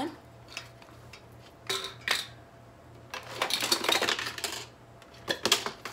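Rummaging through a plastic crate of small desk supplies: a couple of separate knocks, then about a second of clattering and rattling of small hard objects past the middle, and a few more clicks near the end.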